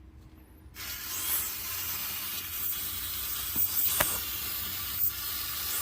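Aerosol can of brake cleaner spraying in one long, steady hiss that starts about a second in, washing oil off the area around the oil pan's drain plug.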